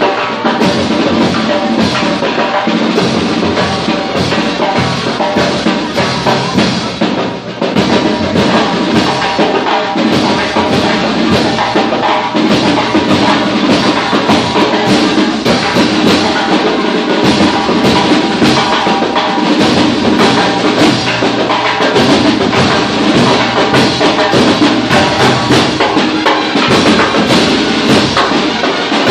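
Live drumming with hand-held crash cymbals, a dense, continuous percussion rhythm played by a group moving through the crowd.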